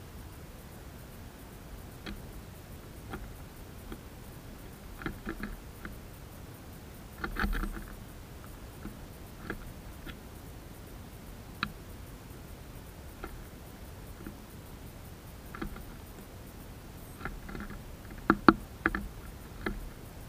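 Irregular taps and clicks of a great tit's feet and bill on a wooden bird feeder as it lands and pecks at grain, with a duller knock about seven seconds in and a cluster of sharper knocks near the end.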